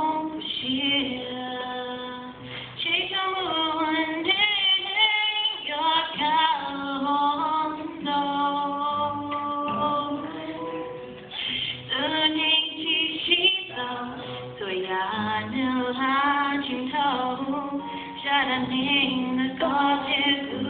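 A woman singing, accompanying herself on acoustic guitar, with long held notes that waver in vibrato.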